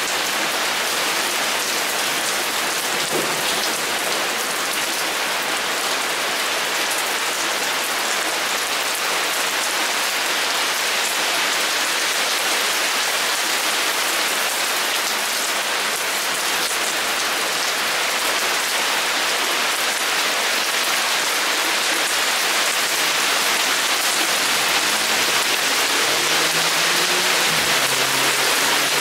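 Heavy rain pouring steadily, a dense, even hiss that grows slightly louder toward the end.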